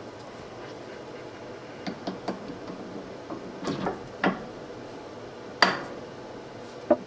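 Hard metal parts being handled and set down: a scatter of clinks and knocks, the loudest about five and a half seconds in with a brief ring, another sharp knock near the end.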